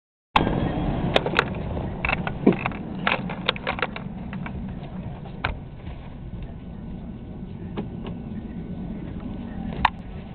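Ford 460 big-block V8 in a Berkeley jet boat running at idle: a steady low rumble with scattered sharp clicks and knocks over it, most of them in the first few seconds.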